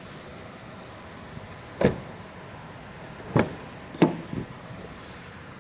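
Car doors of a 2024 Nissan Patrol clunking as they are worked: three loud thuds, the last two close together, with a lighter knock just after the last.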